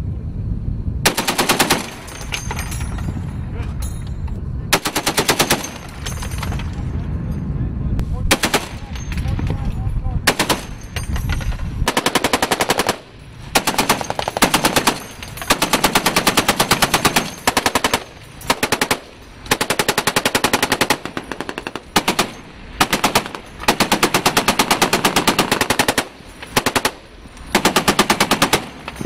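M2 Browning .50 calibre heavy machine gun firing repeated bursts of rapid shots, some short and some several seconds long, with brief pauses between them. A low rumble runs under the bursts in the first half.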